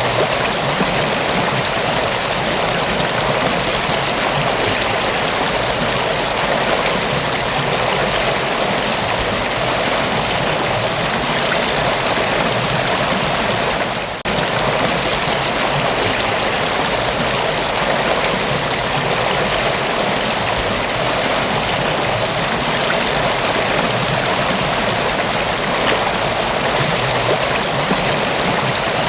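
Mountain waterfall: steady rushing, splashing water, with a brief dip in level about halfway through.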